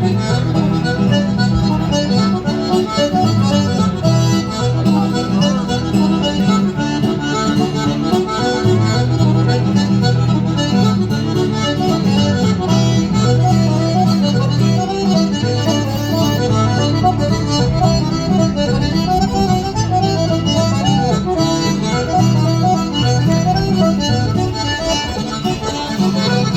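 Traditional Irish-style music playing steadily, with a repeating bass line.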